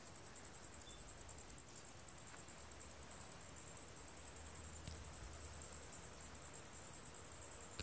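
A chorus of insects chirring high and steady in a rapid, even pulse of several beats a second.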